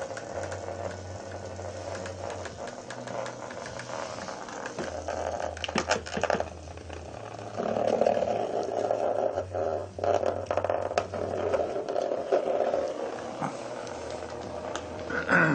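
Tiny vibrating bug toy, a knock-off Hexbug Nano, buzzing and rattling as it skitters against a plastic laundry basket, with scattered clicks and scrapes. The buzz swells and fades as the toy moves, and a short sliding sound comes near the end.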